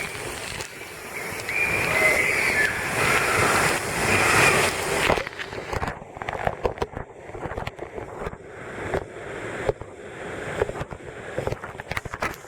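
Waterfall rushing water for about five seconds, then the rush drops away suddenly, leaving scattered knocks and splashes.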